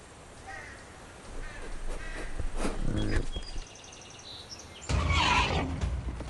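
Short animal calls, then about five seconds in a sudden loud rush of noise with a low rumble as an animal charges.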